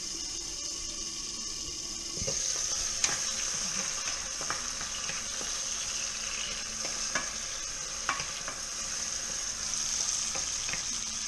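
Chopped tomatoes and garlic sizzling in hot oil in a pan, stirred with a wooden spoon, with a few light knocks against the pan.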